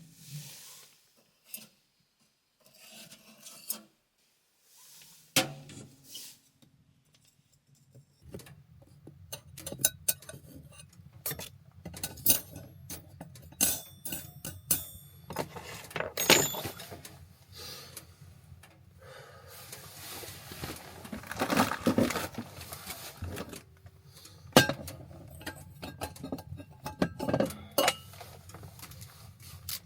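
Cookware and utensils being handled: irregular clinks, knocks and clatter, loudest in the middle, over a low steady hum that sets in about five seconds in.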